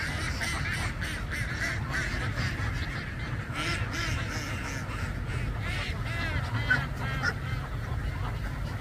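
A large flock of domestic ducks quacking, many calls overlapping into a continuous chatter, with a few louder nearby quacks around four seconds in and again around six to seven seconds in. A steady low rumble lies underneath.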